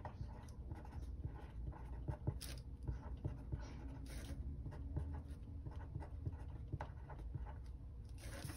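Pen writing on a paper planner page: faint, irregular scratching with small taps of the pen tip.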